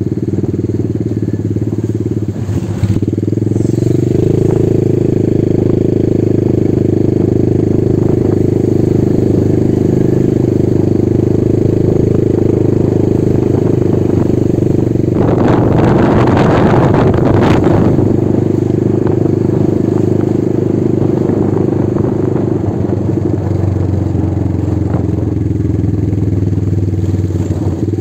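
A small motorcycle's engine running steadily while it is ridden along a road. A louder rushing noise is laid over it for about three seconds just past the middle.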